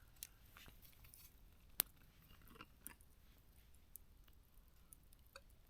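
Faint handling noises while milk is added to a batter in a plastic bag: scattered soft clicks and crinkles, with one sharper click about two seconds in.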